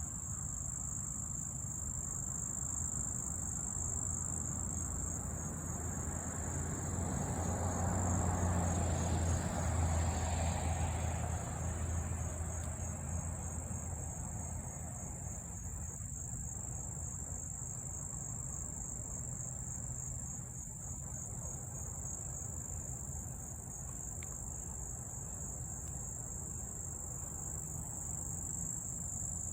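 Insects chirring steadily in one continuous high-pitched band. A low rumble swells and fades over several seconds about a quarter of the way in.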